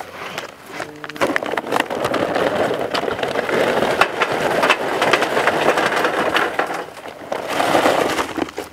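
Charcoal briquettes poured from a paper bag into a metal chimney starter, a dense clattering rattle of many small knocks that runs for several seconds, dips briefly about seven seconds in, then comes again in a shorter pour.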